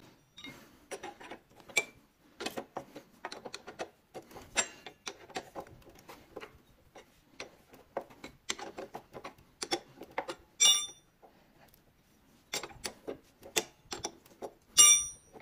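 A wrench working the front brake caliper's mounting bolts loose: irregular metal clicks and clinks of the tool on the bolts, with two sharper ringing clinks, one about ten seconds in and one near the end.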